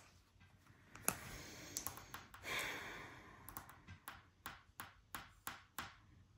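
Tarot cards rustling as they are handled, with a sharp click about a second in. Then long acrylic fingernails tap on the cards and wooden table in a faint, even series of clicks, about three a second.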